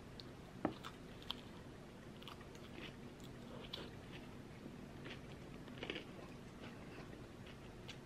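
Close-up chewing of a bite of homemade cherry and apple cream cheese danish, with soft wet mouth sounds. A sharp click, the loudest sound, comes about half a second in, and a fainter click follows.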